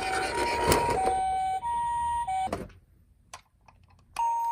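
Toy ambulance minicar's electronic siren playing the Japanese ambulance two-tone 'pi-po' pattern, alternating high and low tones of about two-thirds of a second each. It is mixed with hiss and a couple of clicks in the first second, breaks off abruptly about two and a half seconds in, then starts again near the end.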